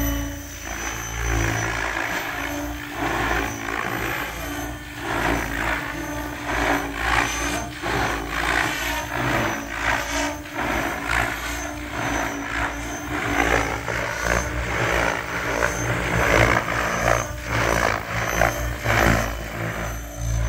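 SAB Raw Piuma 700-class electric RC helicopter on 12S with a Scorpion 4035-560KV motor, flying fast passes. Its main-rotor noise rises and falls again and again as it passes, over a steady high-pitched whine.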